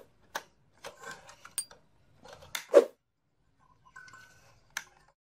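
Clicks and knocks of hands working an Nvidia Quadro FX380 low-profile graphics card loose from its slot inside an open desktop PC case. The sharp handling sounds are irregular, with the loudest knock about three seconds in.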